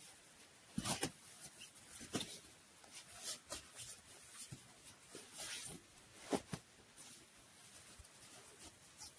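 Irregular small knocks, clicks and rustles of hands handling gear, one or two a second, the sharpest about a second in and again near six and a half seconds.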